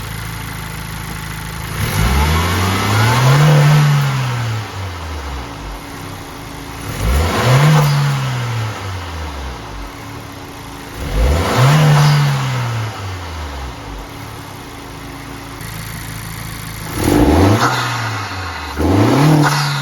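2023 Acura Integra A-Spec's turbocharged 1.5-litre four-cylinder engine idling and being revved: three long revs that climb and fall back to idle, then two short, quick blips near the end.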